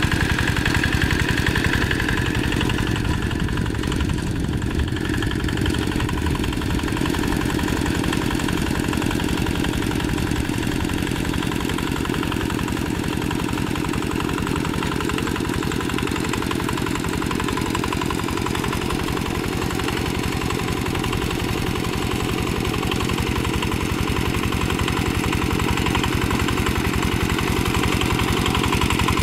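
Diesel two-wheel hand tractor's single-cylinder engine running steadily under load as it pulls cage wheels through paddy mud. It grows somewhat fainter as the tractor moves off and louder again near the end as it comes back close.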